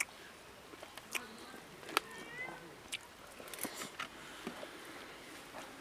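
Close-miked mouth sounds of eating rice and curry by hand: sharp wet lip smacks and chewing clicks about once a second. About two seconds in, a short animal call rises and falls in pitch.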